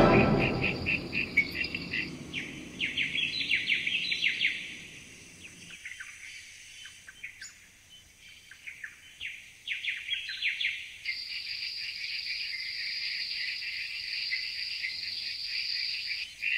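Insects chirping in rapid pulsed trills, with a steady high insect buzz joining about two-thirds of the way through. The last chord of music dies away in the first few seconds.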